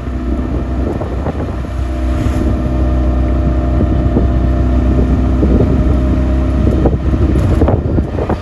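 A motor vehicle running on the move: a loud, steady low engine and road rumble with a steady pitched hum in the middle, and wind buffeting the microphone.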